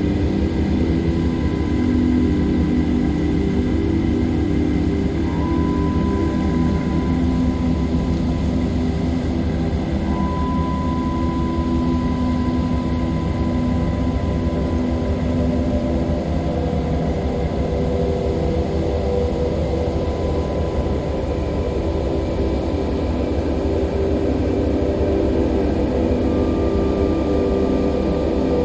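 Ambient drone music: sustained low synth pads with several held notes that shift slowly, over a steady low rumble.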